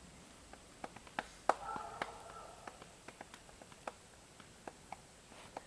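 Quiet outdoor background with scattered faint clicks and ticks, and a brief faint call about one and a half seconds in; no gunshot.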